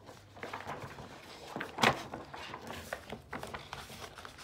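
Rustling and crinkling of a large folded paper poster being pulled from an LP sleeve and unfolded by hand, in irregular short crackles, with one sharp, louder crack about two seconds in.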